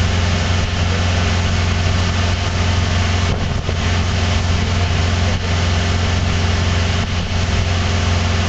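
150-horsepower outboard motor running steadily at cruising speed, a constant low drone under a steady rush of wind and wake water.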